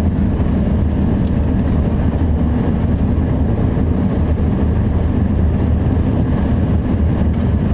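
Steady, loud road and engine rumble of a moving vehicle, heard from inside the cabin.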